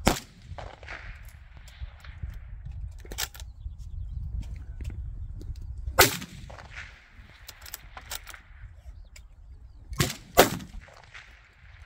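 Accuracy International AT .308 bolt-action rifle firing: sharp shots at the start, about six seconds in, and twice close together about ten seconds in, with lighter clicks between.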